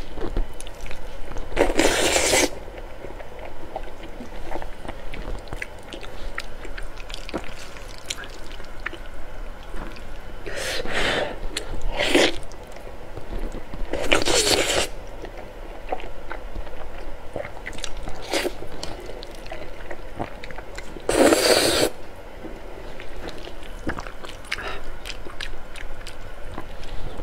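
Close-miked slurping and chewing of saucy instant noodles: about five loud slurps spread through, with soft wet chewing and mouth clicks between them.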